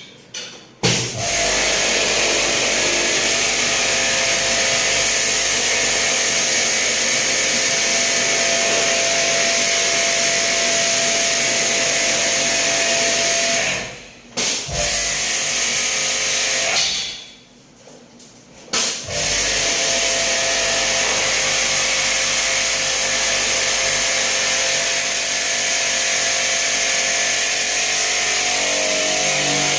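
A small electric motor-driven machine running with a loud, steady hiss and a faint whine. It cuts off twice midway, once briefly and once for about two seconds, then starts again.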